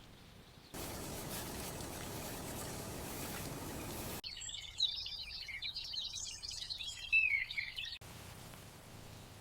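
Birds chirping for about four seconds, their rapid calls the loudest part, after a few seconds of steady rushing noise; both start and stop abruptly.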